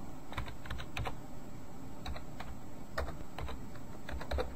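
Computer keyboard being typed on: a dozen or so separate, unhurried keystrokes at an irregular pace as a word is entered letter by letter.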